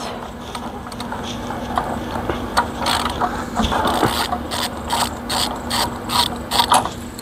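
Socket ratchet clicking in short, uneven runs while a spark plug is loosened and backed out of a small lawnmower engine.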